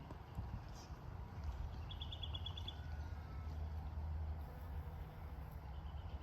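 A small bird's short trill of about seven quick high pips, about two seconds in, and a fainter trill near the end, over a steady low rumble.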